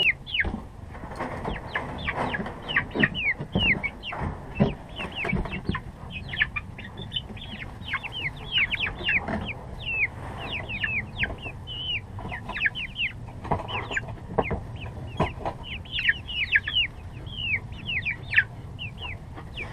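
Young Rhode Island Red chicks peeping continuously: many short, falling high chirps, several a second, from the flock. Occasional low knocks and rustling are mixed in.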